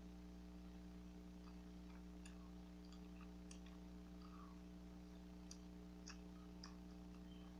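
Faint, scattered wet mouth clicks and smacks of chewing bubble gum over a steady low hum, with a few clicks close together about five and a half to seven seconds in.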